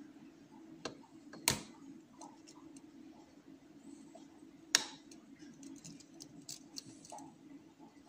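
Metal hook pick and tension wrench working the pins of a euro cylinder lock: faint scattered ticks, with two sharper clicks about a second and a half in and just before five seconds in.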